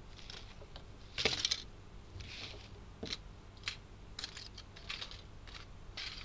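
A series of light clicks and taps with a couple of short rustles, the loudest a little over a second in: a paintbrush and small metal watercolour tins being handled on a desk.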